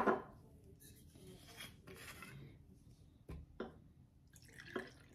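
Orange blossom water poured from a glass bottle into a small plastic measuring cup: a faint trickle, with a low knock about three seconds in and a couple of light clicks after it.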